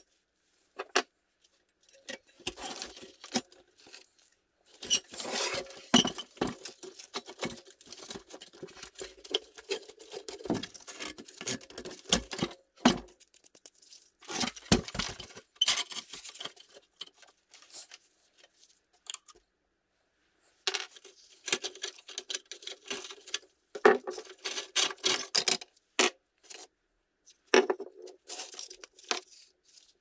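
Rusty steel Tonka toy bulldozer being taken apart by hand: metal parts clinking, rattling and scraping against each other and the bench in irregular bursts, with a pause of a few seconds past the middle.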